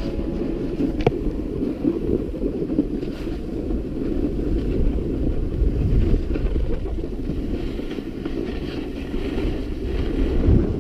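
Wind rushing and buffeting over an action camera's microphone while sliding fast down a groomed ski run, mixed with the low rumble of sliding on packed snow. The rush grows louder near the end.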